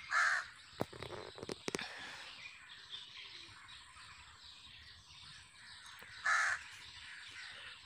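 A bird calling twice, once right at the start and again about six seconds in, each call short, over faint outdoor background with a couple of light clicks between.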